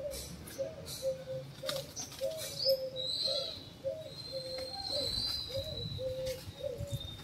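Birds calling: a steady run of short, low, cooing notes, about two to three a second, with a thin, higher whistled call in the middle. Scattered sharp clicks.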